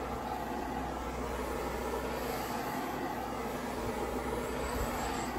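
Handheld MAPP gas torch burning with a steady hiss, its flame played over a rubber drip rail to soften it.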